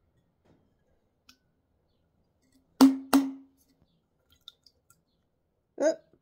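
Two sharp knocks about a third of a second apart, each with a brief hollow ring, as the upturned passata bottle is knocked to shake the last of the sauce into the mixing bowl. A shorter knock-like sound follows near the end.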